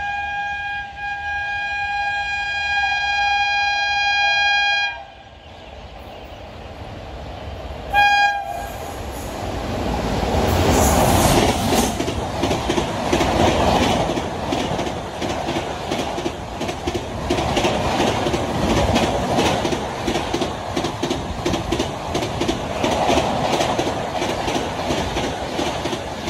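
An express train's locomotive horn sounds one long, steady blast for about five seconds, then a short toot about eight seconds in, as the train approaches. The train then passes at full speed: a loud rush with fast, rhythmic clickety-clack from the coach wheels.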